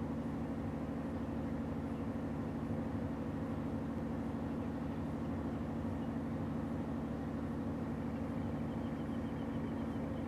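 Boat engine running steadily, a constant low drone that does not change.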